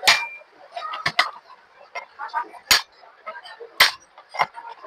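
A hammer strikes a chisel punching the worn steel shaft of a ceiling fan, in about six sharp metallic blows at an uneven pace, two of them in quick succession. The punching raises the metal of the worn bearing seat so the bearing fits tightly again, curing the fan's knocking.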